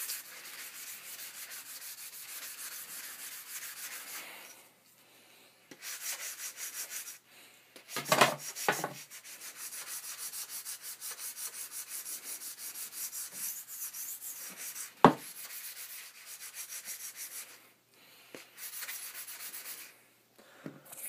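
Sandpaper rubbed back and forth by hand over the composite shaft of a Bauer Total One NXG hockey stick, taking the printed lettering off before painting. It runs in quick rhythmic strokes with a few short pauses, and two loud knocks come about eight and fifteen seconds in.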